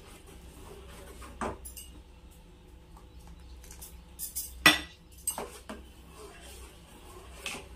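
Steel spoon stirring milk in a stainless steel saucepan, clinking and scraping against the pan a handful of times, the loudest clink about halfway through, as the milk is split with vinegar into chhena.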